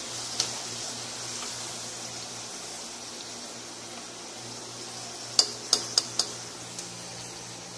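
Eggplant slices sizzling in hot oil in a frying pan while a utensil turns them. A sharp clack against the pan comes about half a second in, and a quick run of four sharp clacks comes about five and a half seconds in, over a steady low hum.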